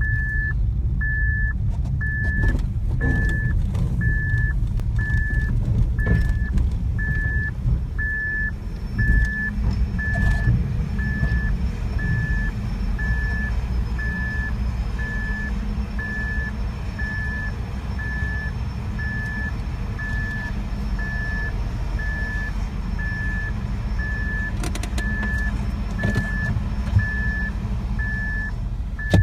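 An electronic warning beeper sounds steadily about once a second, high-pitched and unchanging, over a low, steady rumble of vehicle engines, with a few brief knocks.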